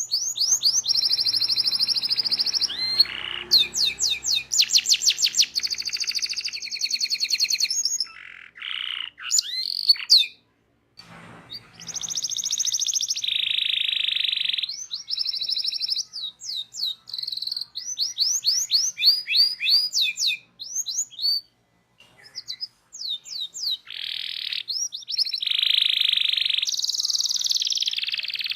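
Domestic canary singing a long, varied rolling song: fast runs of repeated sweeping notes alternating with held buzzy trills, broken by two brief pauses about a third and three quarters of the way through.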